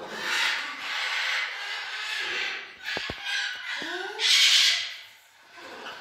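Blue-and-yellow macaws making raspy, hissing sounds. There are two sharp clicks about three seconds in, then a short rising call, then a loud harsh hiss.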